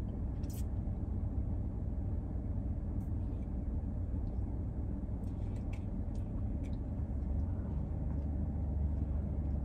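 Steady low rumble inside a parked car's cabin, with a few faint short clicks.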